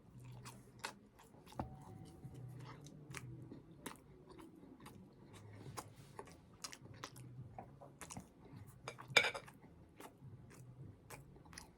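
A person chewing a bite of microwaved steak and cheese sub close to the microphone: faint, irregular wet mouth clicks and smacks, with one louder brief mouth noise about nine seconds in.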